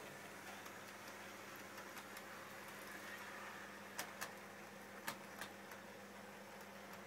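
Faint steady hum and hiss, with a few light clicks about four and five seconds in.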